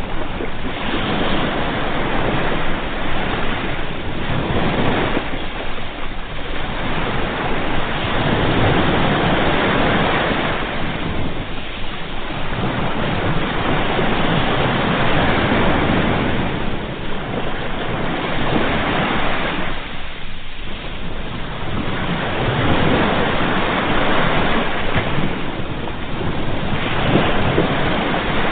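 Sea waves breaking and washing onto a shore, a continuous rushing surf that swells and eases every few seconds.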